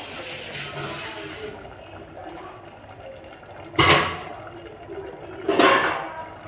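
Thick masala gravy cooking in a steel pot on a gas stove, with a hiss for the first second and a half, then two louder sudden liquid sounds about four and five and a half seconds in.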